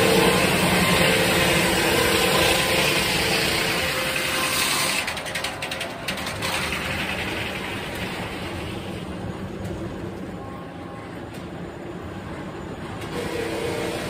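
Sawmill carriage and its 56-inch circular headsaw running, a steady machine hum at first with a quick run of rattling clicks about five seconds in. The noise grows quieter through the middle and louder again near the end.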